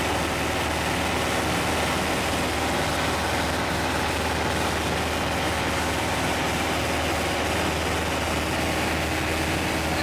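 1946 Piper J-3 Cub's engine and propeller running steadily in flight, heard from inside the cabin: a constant engine hum under a dense rush of air, unchanging throughout.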